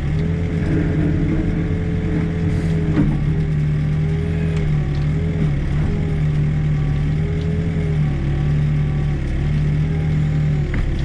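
Backhoe's diesel engine running steadily at working speed, its pitch dipping briefly several times as the hydraulics take load while digging, with a couple of short knocks from the bucket.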